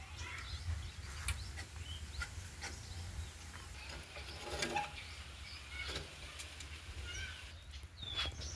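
Birds chirping in short scattered calls over a steady low hum, with a few light clicks.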